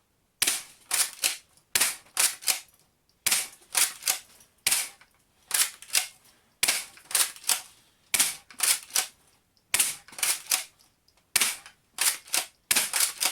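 Spring-powered Tokyo Marui Walther MPL airsoft gun being cocked and fired single-shot again and again. Each cycle is a quick cluster of sharp clicks and snaps, repeating about every one and a half seconds, about nine times.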